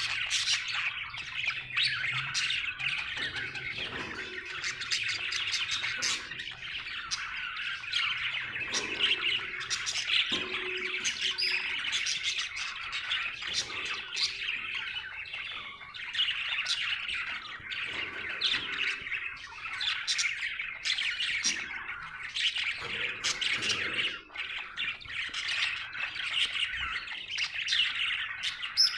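Budgerigars chirping and chattering without a break, a dense warble of short chirps and squawks, the kind budgies make when content.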